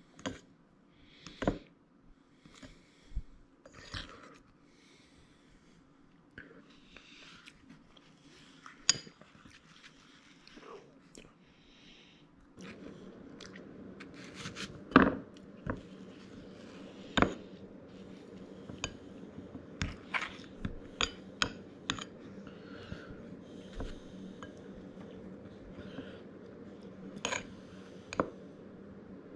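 Metal spoon and fork clicking and scraping against a ceramic bowl as melted chocolate is stirred and apple slices are dipped, in scattered sharp taps. A steady low hum comes in about halfway through.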